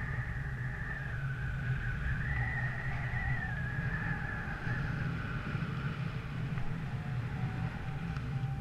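Wind buffeting the action-camera microphone in a fluttering low rumble, with a thin high whistle that wavers up and down and fades out about six seconds in.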